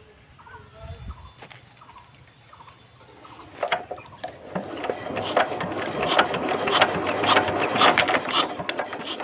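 VST 130 DI power tiller's diesel engine being turned over by its hand crank: a rapid clicking, rasping mechanical noise that starts about three and a half seconds in and grows louder. The injector nozzle's usual sound is absent and the engine doesn't fire, so no fuel is being sprayed.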